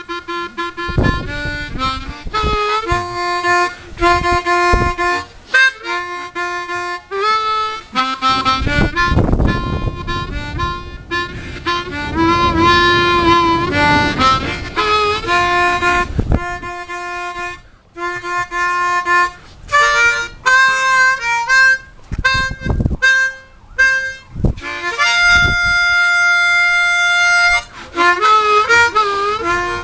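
Harmonica in the key of B flat played solo by ear: short improvised phrases of notes and chords, some notes bent in pitch partway through, with one long held chord near the end.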